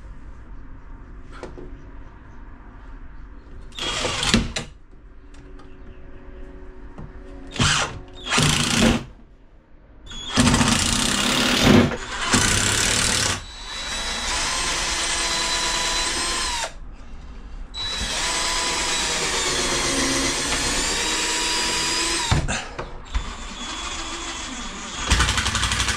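Cordless drill-driver running in several short bursts, then in two long runs of a few seconds each, its whine wavering and sagging as it works under load.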